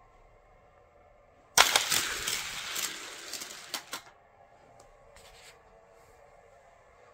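Two die-cast Hot Wheels cars set off suddenly about a second and a half in and rattle down a plastic race track: a dense run of clicks and clatter that lasts about two and a half seconds and fades toward the end.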